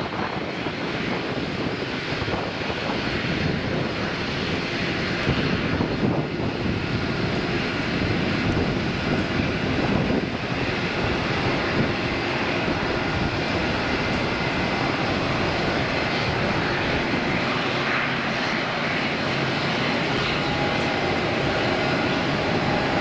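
A Boeing 777-300ER's two GE90-115B turbofan engines at takeoff thrust during the takeoff roll. The jet noise grows louder over the first few seconds and then holds steady.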